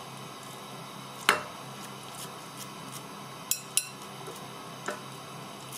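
Light clinks from a plate as hands press raw ground-beef balls flat into burger patties on it: one sharp clink about a second in, two quick ones a little past halfway and a lighter one near the end, over a steady low hum.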